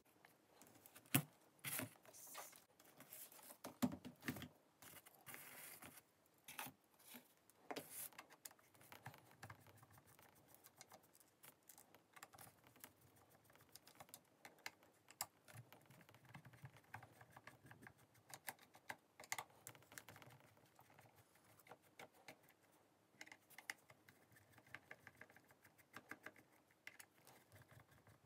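Faint, irregular small clicks and taps as a screwdriver turns out the screws of a corded electric drill's plastic housing and the parts are handled.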